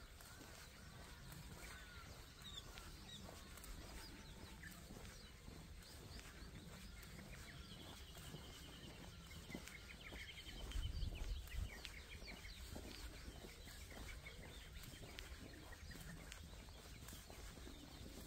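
Wild birds chirping and calling, with a rapid trill of repeated high notes near the middle. A short low rumble comes a little past halfway.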